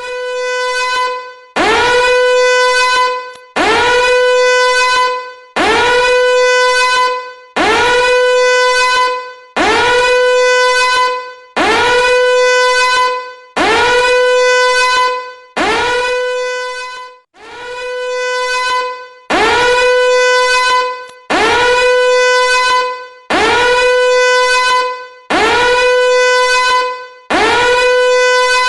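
A loud, buzzy horn-like tone blasted over and over, about fifteen times. Each blast scoops up in pitch and holds for about a second and a half, and a new one starts roughly every two seconds.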